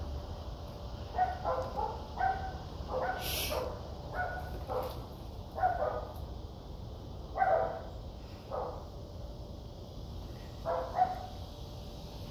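A dog barking repeatedly: about a dozen short, fairly high-pitched barks in irregular runs.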